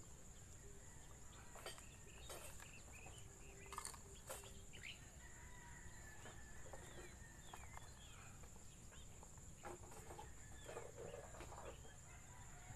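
Faint chickens clucking here and there over a quiet outdoor background, with a steady high-pitched insect drone.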